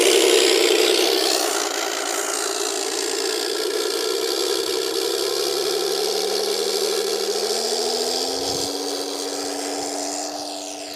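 Simulated aircraft piston-engine sound played through an R/C model airplane's onboard Mr. RC Sound speaker: a continuous, rattly engine note that grows gradually fainter. Midway a lower tone climbs in steps and then holds steady.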